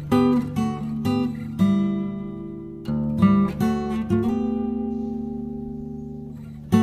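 Background music of strummed acoustic guitar: several chords in quick succession, then one chord left ringing and fading for a couple of seconds before a new strum near the end.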